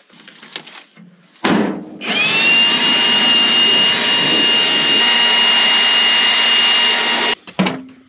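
Milwaukee M18 cordless blower running at full speed, blowing off the combine: a loud rush of air with a high motor whine that climbs briefly as it spins up about two seconds in, holds steady and cuts off suddenly a little after seven seconds. A sharp knock comes just before it starts.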